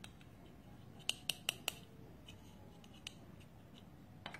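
Large plastic toy building bricks clicking against each other as they are handled: four quick sharp clicks a little after a second in, then two more single clicks later.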